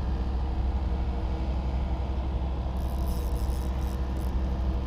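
A spinning reel on a bent fishing rod gives a run of fast, high clicking for about a second and a half in the middle, as a hooked fish is played. A steady low rumble runs underneath.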